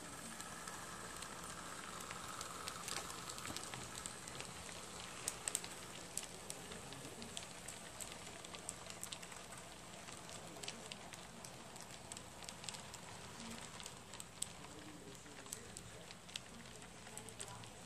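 HO scale model freight train rolling past, its wheels clicking and crackling irregularly over the track, with a faint steady hum underneath.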